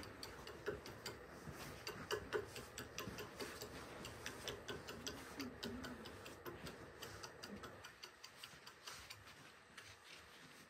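Faint, irregular crunching clicks of footsteps on a packed-snow floor, several a second, growing quieter near the end.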